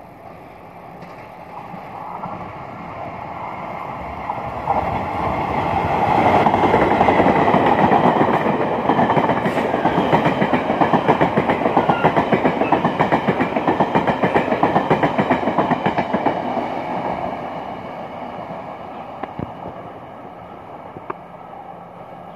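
Taiwan Railways Chu-Kuang Express, a locomotive-hauled train of nine passenger coaches, passing straight through a station. It grows louder as it approaches, is at its loudest for about ten seconds with a fast rhythmic clatter of wheels on the rails, then fades as it moves away.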